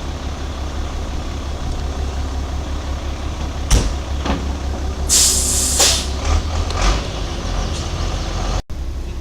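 Flatbed delivery truck's engine idling steadily, with a sharp knock a few seconds in, then a loud hiss of air lasting about a second and a few lighter knocks.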